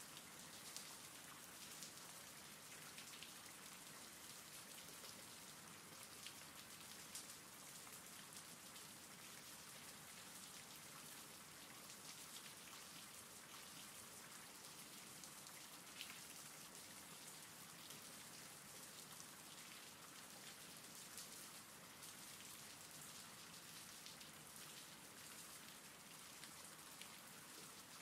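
Faint, steady recorded rain, an even hiss with scattered sharper drop ticks.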